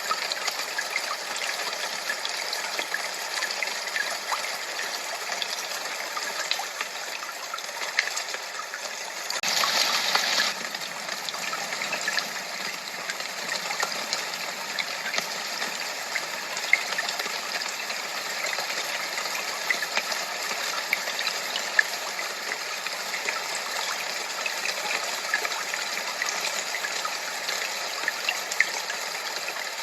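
Steady rushing noise like running water, with small crackles throughout and a brief louder surge about ten seconds in.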